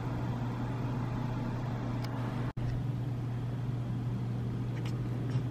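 Steady low hum of background room noise, with a brief dropout about halfway through.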